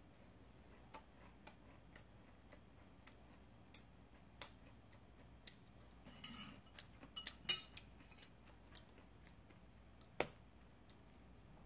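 Near silence broken by scattered faint clicks and small crackles of eating: chewing and handling a flaky chocolate-coated puff pastry. A sharper click comes near the end as a metal spoon goes into a tub of ice cream.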